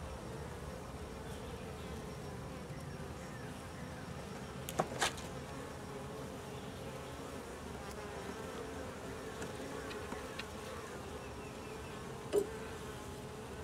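Steady hum of a honeybee colony buzzing around an opened nuc hive. A couple of short light knocks come about five seconds in, and another comes near the end.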